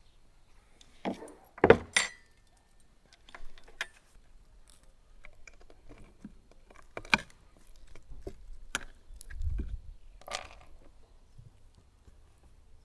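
Scattered clinks and knocks of tableware, loudest about two seconds in, where one clink rings briefly. A few more clinks follow, with a dull low thump shortly before the last.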